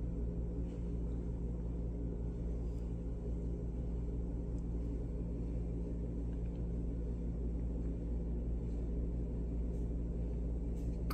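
Steady low machine hum made of several steady low tones, unchanging throughout: indoor room tone.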